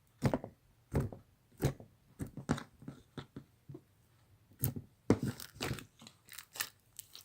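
Fishbowl bead slime being squeezed and pressed by hand: a run of irregular crunchy clicks and crackles from the plastic beads in the slime.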